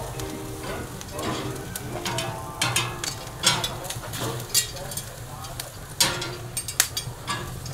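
Glazed pork belly strips sizzling on a charcoal grill grate over direct coals, with fat crackling and popping in many sharp clicks.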